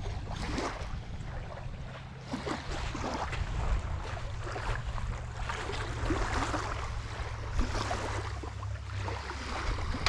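Lake water splashing and lapping in the shallows, in many small irregular splashes, over a steady low wind rumble on the microphone.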